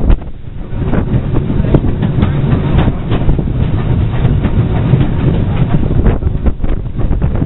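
Former LSWR Beattie 2-4-0 well tank steam locomotive hauling a freight train a few feet away, heard from the brake van it pulls: a steady running rumble with irregular clatter and knocks of wheels on the track.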